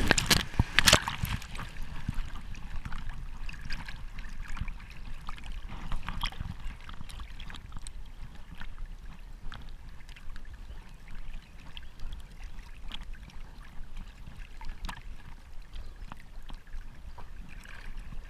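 A Labrador splashes into the water at the start, with a loud splash in the first second, then swims with a stick in its mouth. Water sloshes and laps steadily, heard right at the water surface.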